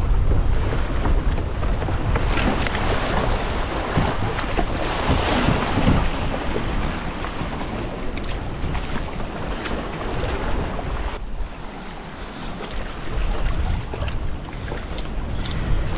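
Wind buffeting the microphone over swell washing and surging against rocks, the surge loudest a few seconds in. A few light clicks and knocks come in the second half.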